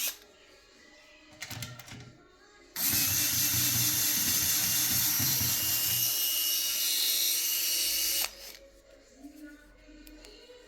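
Cordless electric screwdriver running steadily for about five seconds, backing screws out of a PC motherboard, with a few small handling clicks before and after.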